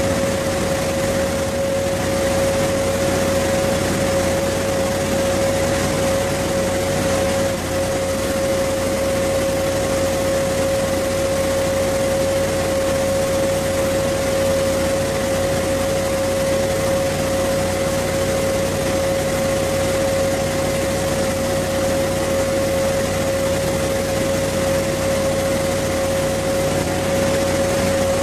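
A large machine running with an unbroken drone and a constant high whine, loud enough to mask the TIG welding arc.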